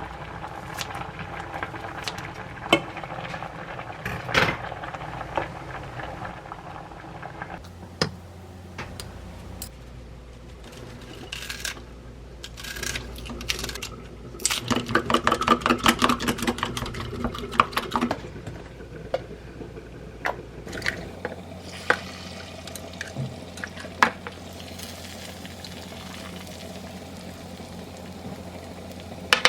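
Kitchen prep sounds: utensils clinking against bowls and dishes, with a low steady hum coming and going. Near the middle comes about three seconds of fast, even beating, like eggs being whisked in a bowl for a rolled omelette.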